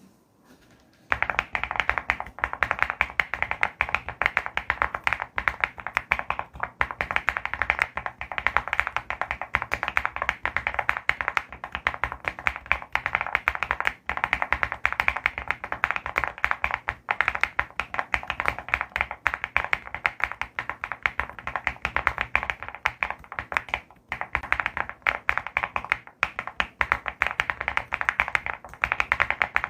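Mechanical keyboard being typed on fast and without letup, a dense stream of key clicks that starts about a second in, with a few brief pauses.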